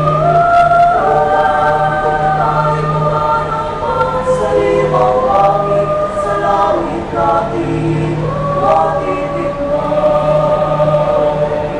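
Mixed choir singing in several parts, holding long chords that move to new harmonies every few seconds.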